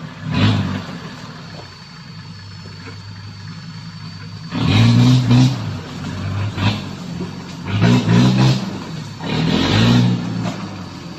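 Off-road Jeep's engine revving in repeated short bursts as the Jeep reverses off a tree through thick brush. It runs lower and quieter for a few seconds early on, then revs hard several times from about four and a half seconds in.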